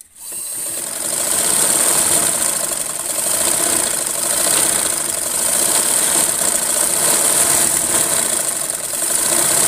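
Old black Butterfly sewing machine driven by an add-on electric motor, stitching at speed with a high motor whine and the fast clatter of the needle mechanism. It picks up speed over the first second, then runs steadily.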